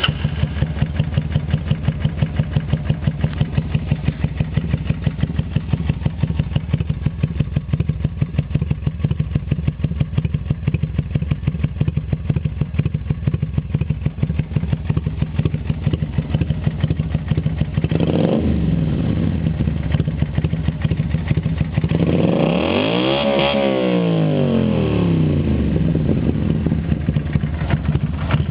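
Kawasaki Vulcan 400 V-twin idling through 2-into-2 trumpet mufflers fitted with Motor Stage inner silencers, slightly modified to an 8 mm bore, with a steady pulsing exhaust beat. A short blip of the throttle comes a little past halfway, and a longer rev that rises and falls comes near the end.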